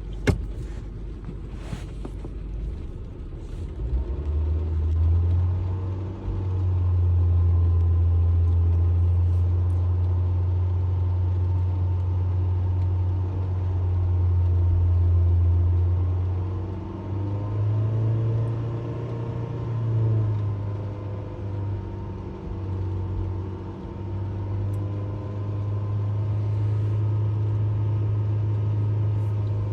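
Honda HR-V engine running with a steady low drone, its revs rising briefly about two-thirds of the way through. A few sharp clicks come in the first few seconds, before the drone sets in.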